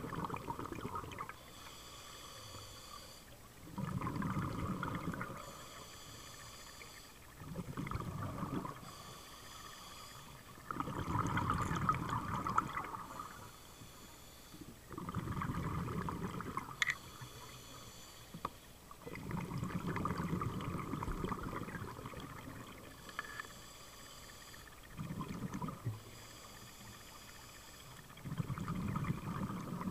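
Scuba diver breathing through a regulator underwater: a hissing inhale, then a bubbling exhale, repeating about every three to four seconds, with about eight exhales in all.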